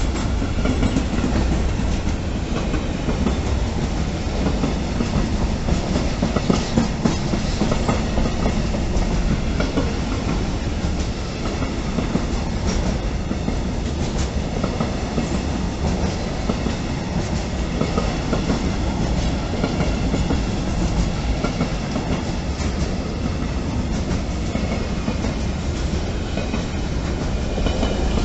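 Intermodal freight wagons, container wagons and pocket wagons loaded with semi-trailers, rolling past at close range. Their wheels give a steady rumble on the rails with scattered clacks.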